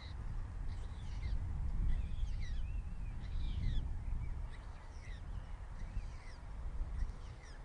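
Birds chirping in many short, quick, downward-slurred notes over a steady low rumble.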